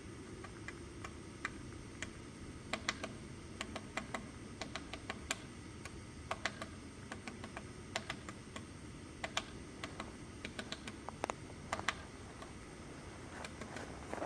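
Woodpecker pecking at wood with irregular sharp taps, a few a second, in uneven runs as it forages.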